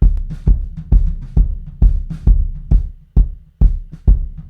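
Playback of a close-miked kick drum recording with some snare bleeding in, hitting in a steady pattern about twice a second. The track is compressed with Waves Smack Attack so each hit's sustain is cut short.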